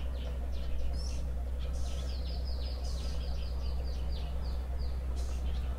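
A bird calling in a run of quick, high notes, each falling in pitch, about four a second, over a steady low rumble.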